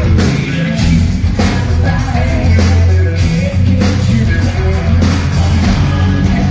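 Hard rock band playing live and loud: drums hitting steadily under electric guitars, with a male singer's vocal on top.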